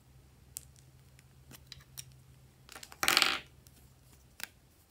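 Metal scissors and plastic glue sticks handled over a glass bowl: a few light clicks, then a louder brief clatter about three seconds in.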